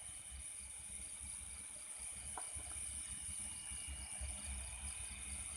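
Night insects chirring steadily: a continuous high-pitched drone with a quicker pulsing trill beneath it, over a low rumble.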